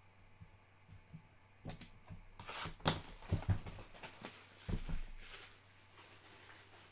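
Crinkling and tearing of a trading-card pack's foil wrapper, with the cards inside being handled; the rustle starts abruptly after a quiet second and a half and dies down for the last second or so.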